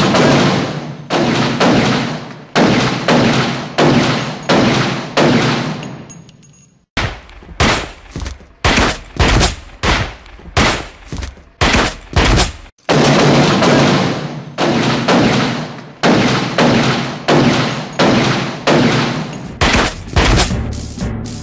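Gunfire sound effects: a rapid series of sharp bangs, each with an echoing tail, about two a second, in three runs separated by short breaks, over a steady low rumble.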